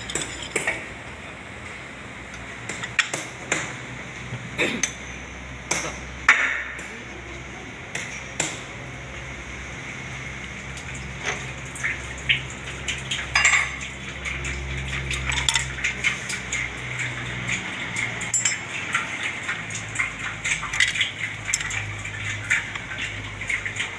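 Scattered metallic clinks and knocks of tools, a filler cap and a metal can against a forklift's steel floor plate and transmission fill hole, over a low steady hum.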